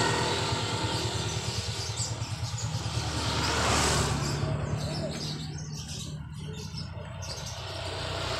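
An engine running steadily, its low pitched drone swelling and fading in loudness.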